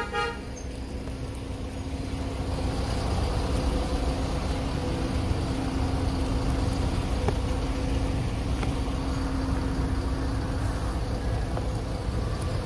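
Vehicle engine idling with a steady low hum and rumble. The hum fades near the end.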